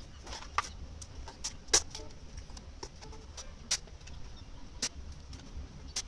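Scissors snipping through a stiff plastic box lid, a string of sharp, irregular cracks and clicks, one much louder than the rest about two seconds in, over a low background rumble.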